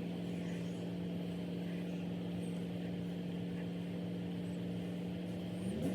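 Soldering gun's transformer humming steadily while held on a QS8 connector, heating it so the solder flows and fills the cup.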